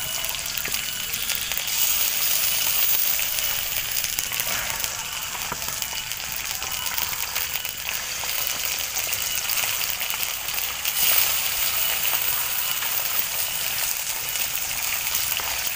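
Fish frying in hot oil in a wok: a steady sizzle with fine crackling spatters.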